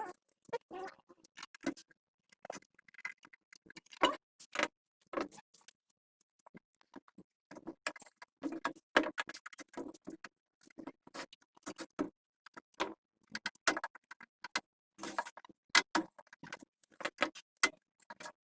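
Irregular clicks, taps and clinks of hand tools and small metal parts being worked on, with a short lull about six seconds in.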